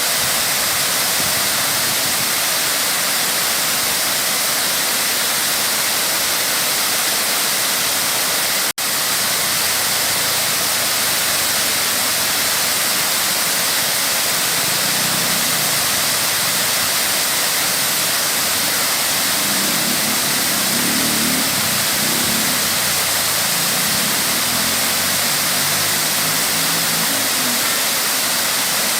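Waterfall rushing with a steady, full hiss of falling water, cut off for an instant about nine seconds in. Faint low pitched sounds come and go in the second half.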